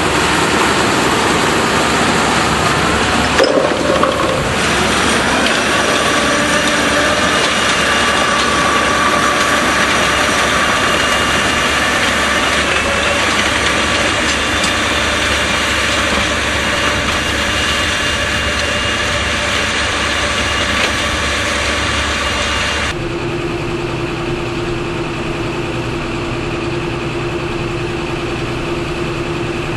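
Tractor engine running steadily, with a brief knock about four seconds in and an abrupt change to a different, steadier engine note about 23 seconds in.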